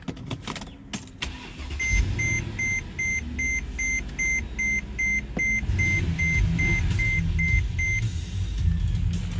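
Mercedes-Benz GL450's V8 engine starting about two seconds in and settling to an idle, which the owner judges to be working perfectly after a new ignition coil cured a cylinder 4 misfire. A dashboard warning chime beeps evenly, about two and a half times a second, for about six seconds after the start.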